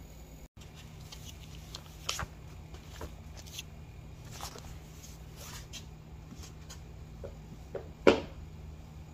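Whiteboard marker writing on a whiteboard: scattered short squeaks and taps of the pen tip, with one sharper click about eight seconds in, over a low steady hum.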